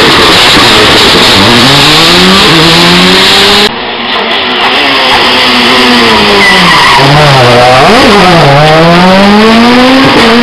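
Rally car engines at a hairpin, heard in two passes joined by an abrupt cut a few seconds in. First the revs climb steadily as one car accelerates out of the bend; then a second car's revs fall as it slows into the turn, flick up and down once, and climb again as it accelerates away.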